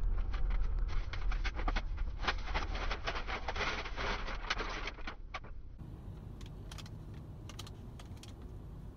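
Low road rumble inside a moving car with rapid, irregular clicking or rattling, densest around three to four seconds in. About six seconds in the sound changes to a steadier low hum with only scattered clicks.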